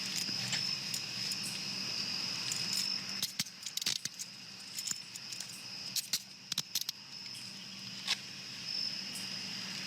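Crickets chirping steadily in a continuous high trill, over a low hum. A cluster of sharp clicks and rattles comes from about three seconds in to about seven seconds, with one more near the end.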